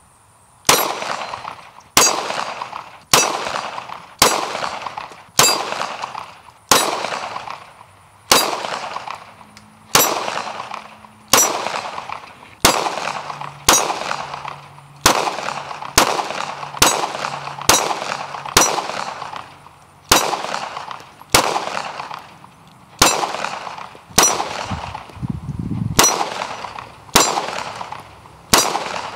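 Palmetto State Armory Dagger 9mm pistol fired at a steady slow pace, about two dozen shots roughly a second apart, each shot leaving a ringing tail.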